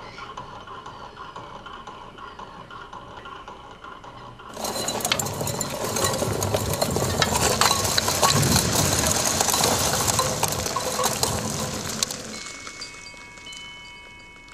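Sand and earth pouring down in a collapse: a dense hiss of falling grains full of small patters starts suddenly about four and a half seconds in, then thins out over the last few seconds as it dwindles to a trickle.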